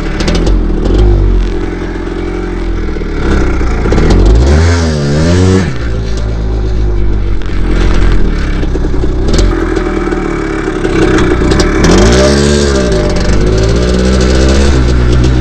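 Dirt bike engine running under load on a trail, its revs dropping and climbing again twice, about four seconds in and again about twelve seconds in.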